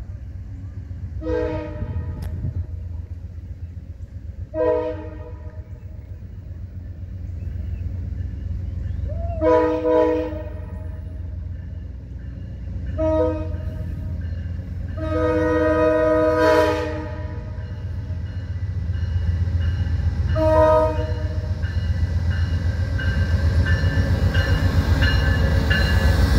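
Amtrak GE P40DC diesel locomotive approaching: its air horn sounds a series of blasts, several notes at once, with one long blast about 15 seconds in. A low diesel rumble under the horn grows louder until the locomotive passes close by near the end.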